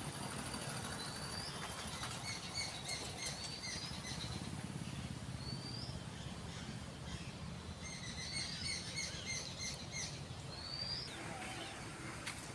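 Birds calling in the trees: several short, upward-sliding whistled chirps and quick runs of short repeated notes, over a steady low background rumble.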